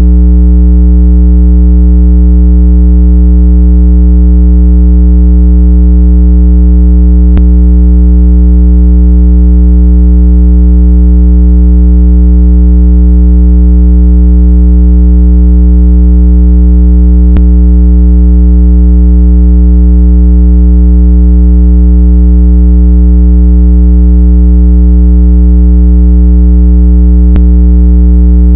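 Loud, low, steady synthesized tone, several pitches held together without change: a speaker-cleaning tone played to shake trapped water out of a phone's speaker grille.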